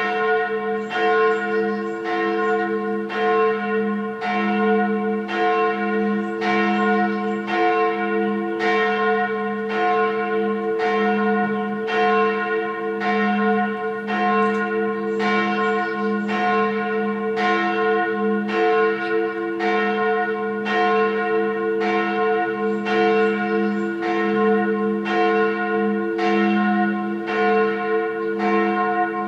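A single church bell rung as a tocsin, the alarm peal: struck over and over at an even pace of about one stroke a second, each stroke ringing on into the next.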